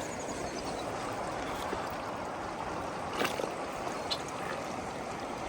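Steady rush of a river's current flowing by, with a couple of faint short ticks about three seconds in.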